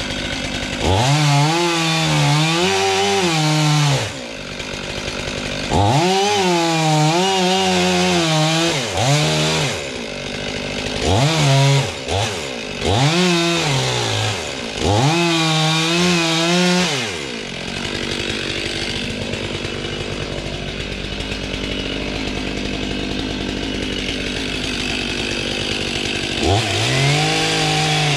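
Chainsaw revved up hard again and again, each burst rising to full speed, wavering there for one to three seconds, then dropping back to idle. A long stretch of idling follows, and one last rev comes near the end.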